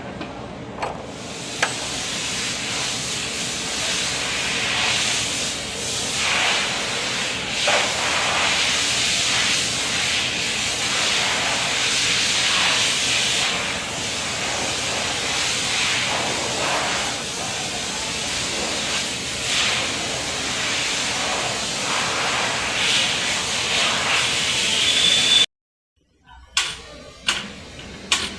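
Spray pump sprayer discharging, a steady spray hiss that swells every second or two, then cuts off suddenly near the end, followed by a few clicks.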